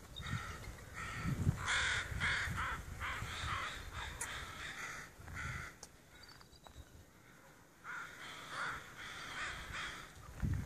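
Crows cawing in two runs of harsh, repeated calls, one from about a second in to halfway and another near the end, with wind rumbling on the microphone.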